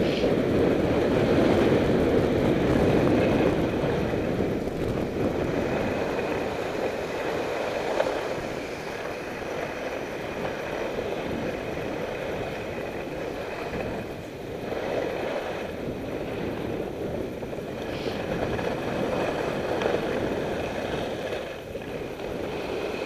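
Kendo skis carving down freshly groomed corduroy snow: a steady rushing scrape that swells and eases with the turns, mixed with wind rushing over the microphone.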